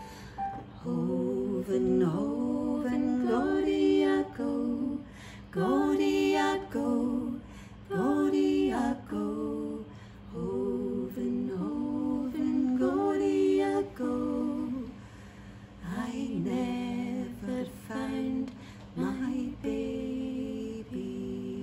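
Two women singing a slow Scottish lullaby-lament without accompaniment, in phrases of a second or two with short breaks between, with no words caught. A steady low drone sounds underneath.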